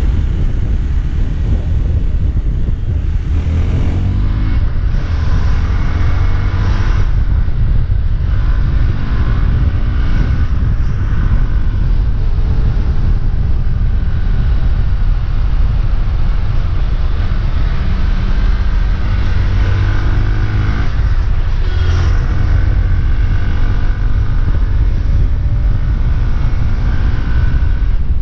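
Hero Xpulse 200 4V's single-cylinder engine through its stock exhaust, riding along: the revs climb and drop several times as it pulls through the gears. Heavy wind rumble on the microphone lies under it.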